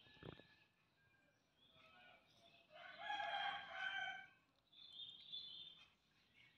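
A rooster crowing once, a single drawn-out call of about a second and a half a few seconds in, with faint bird chirps after it.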